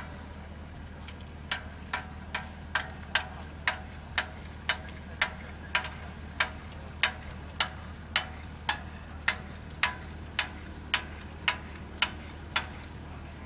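Regular sharp metallic strikes, about two a second and each ringing briefly, over a steady low hum. The strikes begin after a short pause at the start.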